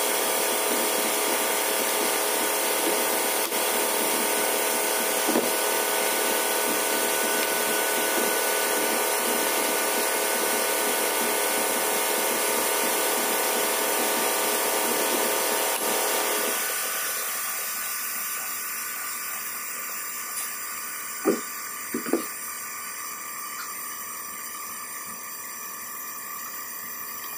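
Steady mechanical whir with a hum of several fixed tones, like workshop machinery running, that winds down over a couple of seconds about 17 seconds in and leaves a quieter hum. A few sharp clicks follow as hand tools work on the plastic bumper.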